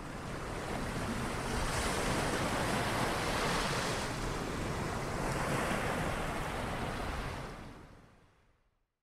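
Rushing sound effect of ocean waves, swelling twice and fading out about eight seconds in.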